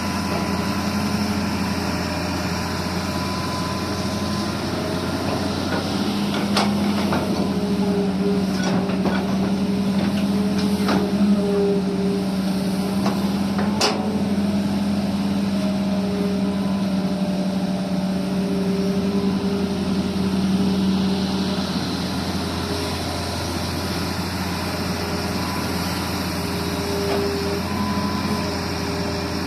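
Excavator's diesel engine running steadily, its note getting stronger in the middle as it works under load, with a series of sharp knocks about six to fourteen seconds in.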